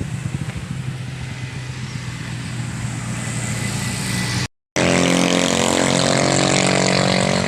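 Motorcycle engine running at a steady speed while riding, with wind noise. The sound drops out for a moment about four and a half seconds in, then the engine comes back louder and fuller.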